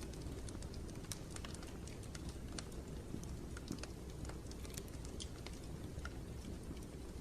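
Steady low rumbling ambient noise with many small, irregular clicks and ticks scattered through it.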